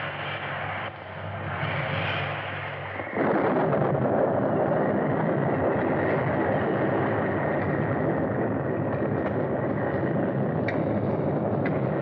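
A loud, steady rushing roar with a low rumble underneath. It starts suddenly about three seconds in, over a quieter rumbling noise.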